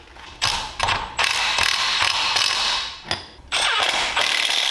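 Cordless power tool running in bursts, with a short pause about three seconds in, as it drives a 1/4-inch bolt into the governor-shaft hole of an aluminium small-engine block. The bolt cuts its own threads as it goes in.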